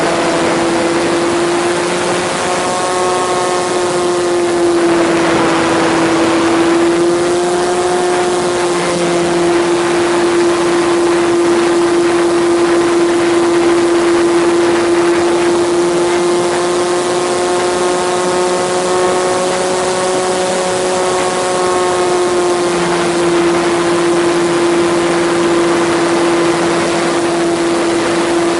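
A small electric RC plane's motor and propeller heard from the onboard camera in flight: a steady whine with overtones that swell and fade, over a constant rush of wind across the airframe.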